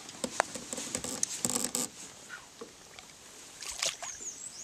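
Water splashing as a smallmouth bass is lowered over the side of a metal boat and released, with sharp knocks against the hull. The louder splashes come about a second and a half in and again near the end.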